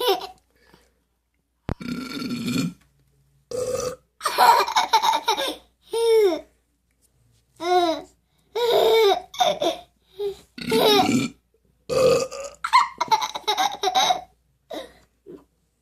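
Burps and a baby's laughter, the baby laughing at the burping and imitating it, in a run of short outbursts with pauses between.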